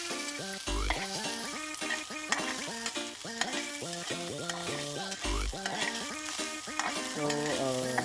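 Pork fat cubes sizzling in hot oil in a wok while a metal spatula stirs and scrapes them against the pan; the fat is being rendered so that it fries in its own oil. Background music with a bass note now and then plays over it.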